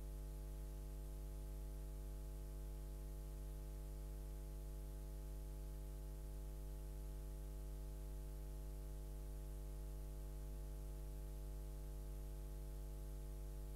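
Steady electrical mains hum with a buzzy edge and faint hiss, unchanging throughout, on a silent stretch of an old videotape transfer.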